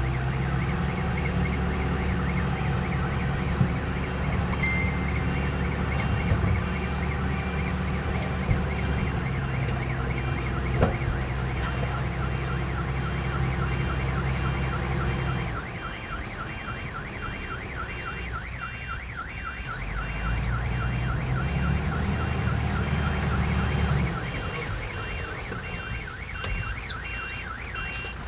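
Diesel engine of heavy earthmoving machinery running hard, with a reversing alarm warbling in a rapid, even repeat throughout. The engine eases off about halfway, picks up again for a few seconds, then eases near the end.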